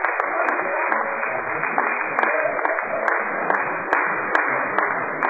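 Small audience applauding after a point in a badminton match, a steady patter of clapping with a dozen or so sharper single claps standing out.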